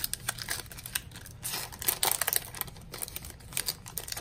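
Foil wrapper of a trading-card booster pack being torn open and crinkled as the cards are pulled out, a quick irregular run of crackles and clicks. The loudest crackles come about halfway through.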